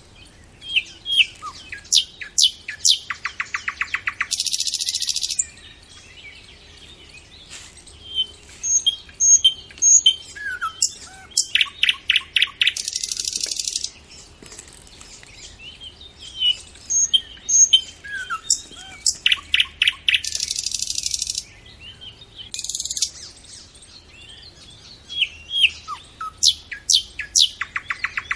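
Birds chirping and singing: short whistled notes and chirps, with a repeating phrase of a rapid trill followed by a harsh, buzzy hiss about every eight seconds.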